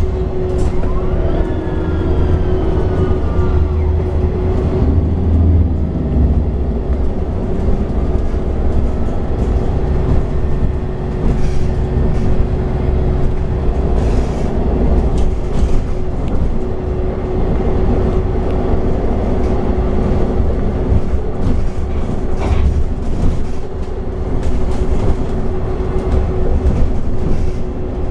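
MAN Lion's City 12C city bus (MAN D1566LOH engine, Voith automatic gearbox) driving: steady engine and running noise with a constant whine and occasional knocks, plus a short rising whine about a second in.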